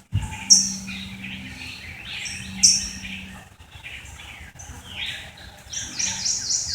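Birds chirping and calling, with sharp high chirps and a quick run of short falling notes near the end, over a faint steady low hum.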